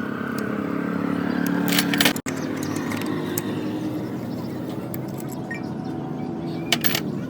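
Car engine running steadily, with irregular sharp metallic clicks over the engine note: the abnormal engine noise that points to a fault.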